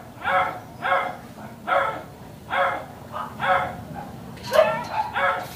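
Small dog barking over and over, a short bark a little more often than once a second.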